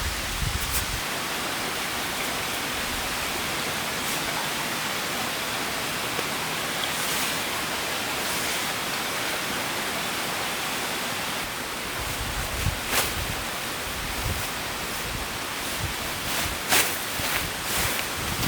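Steady outdoor rushing noise, with a few sharp clicks and some low thumps in the second half.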